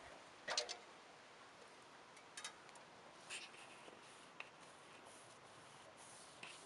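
A painter's hand tool scraping on the house trim: a handful of faint, scratchy strokes a second or so apart over a low steady hiss.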